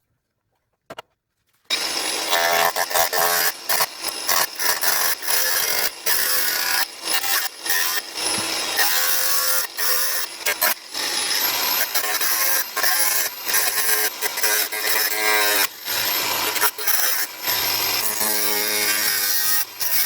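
An electric power tool working on car body sheet metal, running loud and hard with many abrupt short breaks. It starts about two seconds in, after a near-silent moment.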